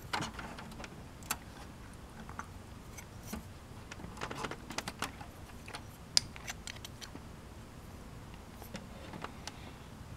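Scattered light clicks and small metallic taps of hands handling the sheet-metal card cage and parts inside the open case of a Dell Dimension 4550 desktop, with one sharper click a little after six seconds.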